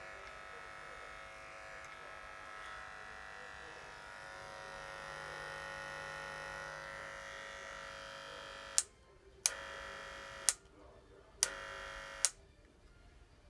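Moser Primat 1233 corded hair clipper's oscillating-armature motor buzzing steadily. From about nine seconds in it is switched off, on, off, on and off again, each switch a sharp click, the loudest sounds here.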